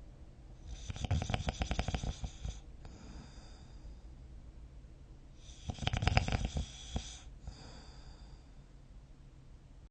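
A person snoring in sleep: two long, fluttering snores about five seconds apart, with quieter breathing between them.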